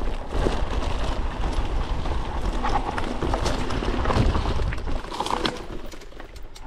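Mountain bike rolling down a rough dirt trail: tyres crunching over dirt and loose stones, with irregular clicks and knocks from the bike rattling over bumps, over a steady low rumble of wind buffeting the microphone.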